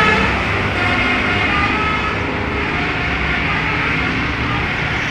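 Tour bus engine and road noise as a bus passes, a steady low rumble easing off slightly. The multi-tone musical horn that was sounding cuts off right at the start.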